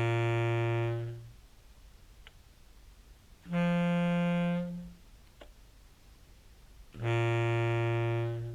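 Contrabass clarinet notes run through an envelope filter into a fuzz pedal: three sustained, buzzy fuzz tones of about a second and a half each, low, then higher, then low again. The filter softens each note's attack, so the key clicks are all but gone from the fuzz.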